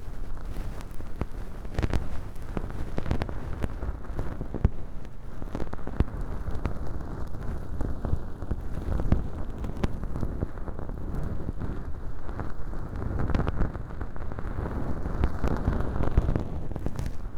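Bonten feather ear pick brushing and scratching inside an ASMR ear model packed with dry fake earwax: a dense, dry rustling and crackling with many small clicks.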